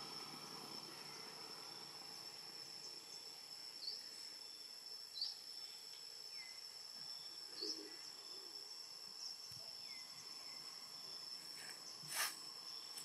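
Steady high-pitched drone of insects, with a few short falling chirps scattered through and one sharp click near the end.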